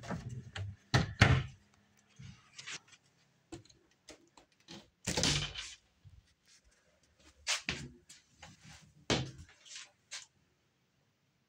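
A wooden cupboard door being handled and shut, with a few knocks in the first second or so. About five seconds in, a shower cubicle's glass door is opened with a short scraping rush, followed by scattered light clicks and taps.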